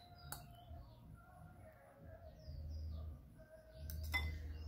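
Small birds chirping in the background, a scatter of short high chirps. A soft knock comes about four seconds in, with a low rumble around it.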